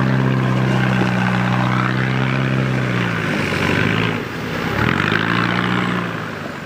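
Land Rover Discovery's turbodiesel engine running at high revs under load. The revs sag about three seconds in, bottom out near five seconds, then climb back up.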